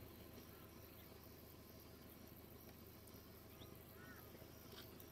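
Near silence: faint open-air rural ambience with faint insect sounds and a few brief faint chirps.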